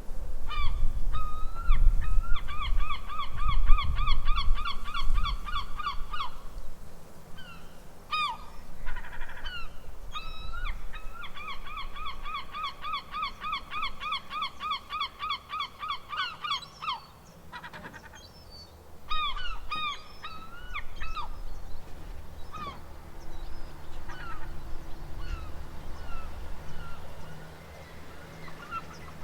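Seagulls calling: long runs of rapid, repeated yelping calls at about four a second, with single calls in between. A low rumble sits under the calls, strongest in the first few seconds.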